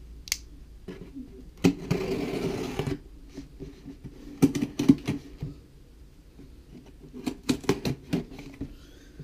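Cardboard shipping box being handled on a wooden desk: scattered knocks and taps, with a scraping rustle lasting about a second near the two-second mark.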